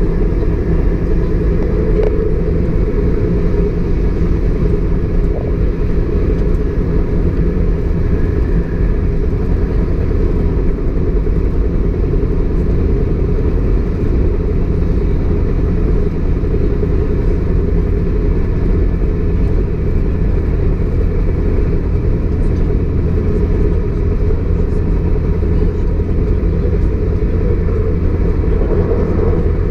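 Class 153 diesel railcar running at speed, heard from inside its rear cab: a steady low rumble of the underfloor Cummins diesel engine and the wheels on the rails.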